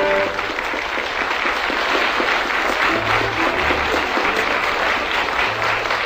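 Audience applauding, with music under it whose held notes stop within the first second.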